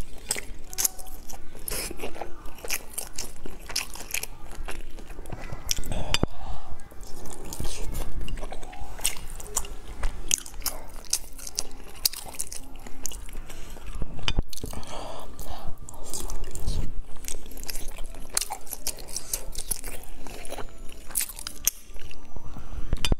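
Close-up sounds of a person chewing and biting food, with many sharp mouth clicks.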